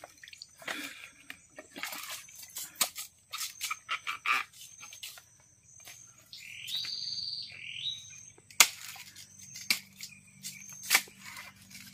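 A machete chopping and cutting at the base of an asam paya palm stalk: a run of irregular sharp cracks and chops, with two louder strikes in the second half.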